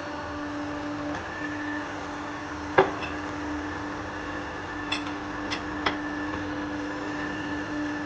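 A steady machine hum, with a sharp knock about three seconds in and three light clicks a couple of seconds later.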